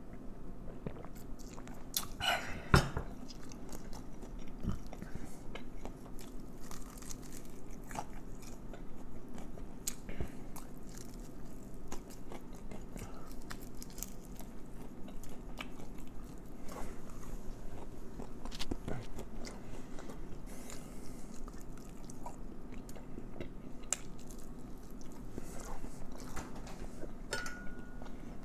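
Close-up chewing and biting of crispy fried Cornish hen, with small crunches and wet mouth sounds throughout. There is one sharp knock about three seconds in.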